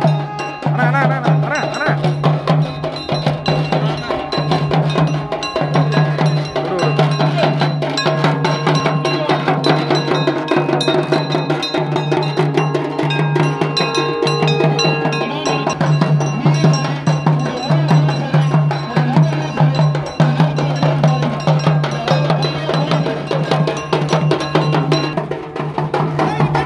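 Several conch shells blown together in a low, steady drone broken by short pauses for breath, over rapid strikes on hand-held brass gongs beaten with sticks. Conch and gong together are the call played at Tamil funerals.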